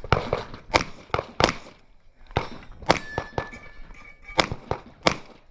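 Airsoft pistol firing a string of about eight sharp shots at uneven intervals during a timed course of fire.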